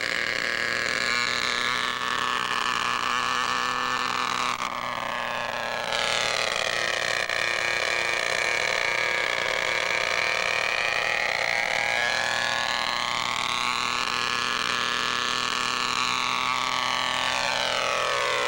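Radio-controlled model helicopter's small engine running at high revs with a whine, its pitch falling and rising several times as it lifts off and flies past, and dropping steeply near the end.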